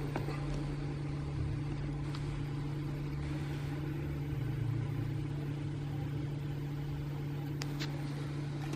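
Hot air rework gun blowing steadily, a constant fan hum with airy hiss, heating the phone to soften the battery adhesive. A couple of faint ticks near the end.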